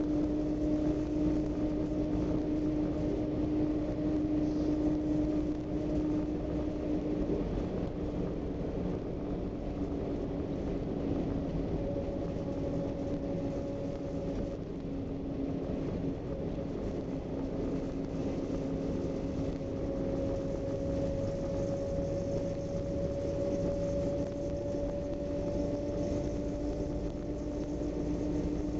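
Inside a Scania Irizar Century coach on the move: a steady engine hum over low road rumble, its pitch sagging slightly about halfway through and rising again near the end as speed changes.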